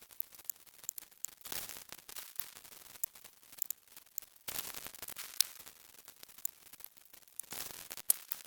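Static-like hiss that swells up for about half a second to a second at a time, roughly three times, with many short sharp clicks scattered through it.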